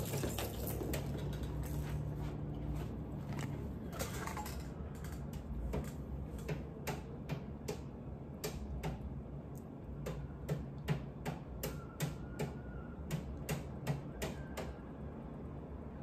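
Light clicks and taps of small objects being handled close to the microphone while rummaging for a chapstick. They are irregular at first and come about twice a second in the second half.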